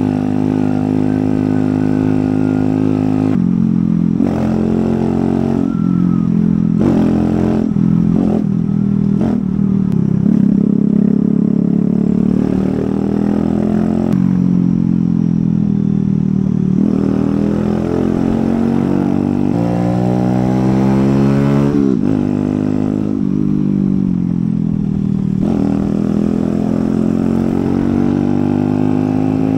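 Kawasaki Z125 Pro's 125 cc single-cylinder four-stroke engine running through an aftermarket exhaust while being ridden: the revs rise and fall with the throttle and gear changes, with a long climbing rev about two-thirds of the way in.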